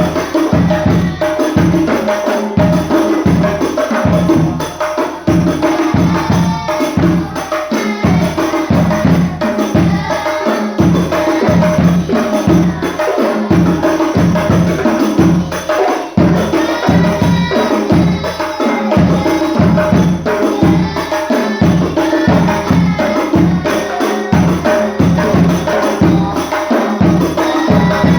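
Hadrah ensemble playing rebana frame drums and jingles in a fast, steady rhythm, with deep drum beats about two to three times a second.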